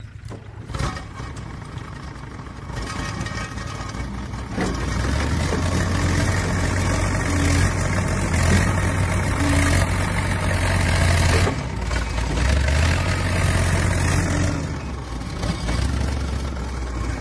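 Backhoe loader's diesel engine running, getting louder about four seconds in and working hard for several seconds as the front bucket pushes into a pile of soil and lifts a full load, then easing off a little.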